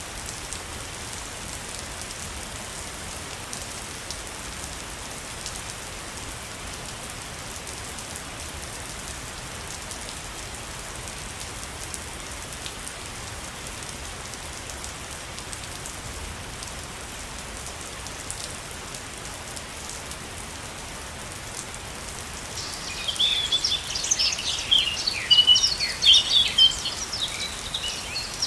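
Steady rushing water of a waterfall. Near the end, birds start chirping in quick, bright bursts that are louder than the water.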